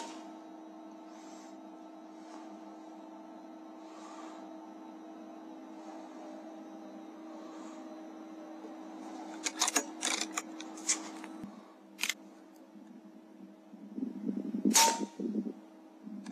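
A single shot from an AGT Uragan 2 FAC air rifle, a sharp crack and the loudest sound, about fifteen seconds in. Before it comes a quick run of clicks and knocks around ten seconds in, then rustling from about fourteen seconds, all over a faint steady hum.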